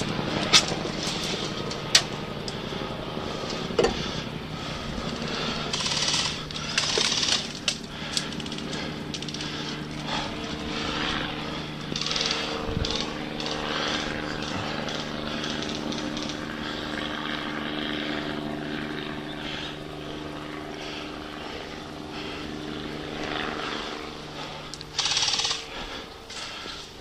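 A steady engine drone at a constant pitch, with three sharp cracks in the first few seconds and short bursts of rustling.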